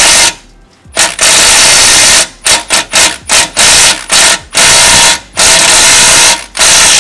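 Power drill run in repeated bursts on a motor-mount bolt, a rapid hammering rattle. Some runs last a second or so, others are quick blips.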